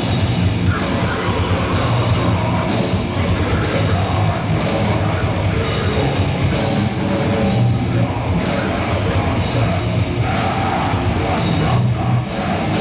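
Loud live heavy metal played by a band, with electric guitars and a drum kit.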